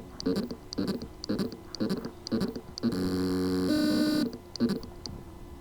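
Hard drive spindle motor with loose motor contacts, trying to spin up: short buzzing pulses about twice a second, each with a high tick, and a stretch of steady humming tones just past the middle. It is the sign that the motor can spin but cannot reach full speed because of loose motor contacts.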